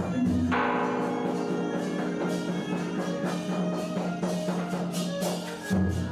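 Instrumental music: long held notes over light percussion strikes.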